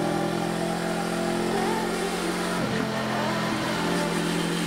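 Suzuki GSX250R's parallel-twin engine running at a steady speed while the motorcycle is ridden, with a brief wobble in pitch a little after halfway.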